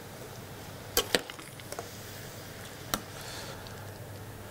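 Metal spoon clinking against a stainless saucepan and pot while blanched chips are lifted and moved: two sharp clinks about a second in, a few lighter ticks, and another clink near three seconds, over a low steady hum.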